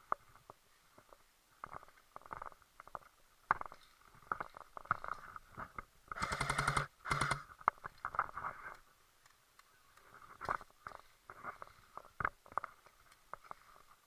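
Airsoft gun firing: two rapid full-auto bursts a little past the middle, with scattered single pops and clicks before and after.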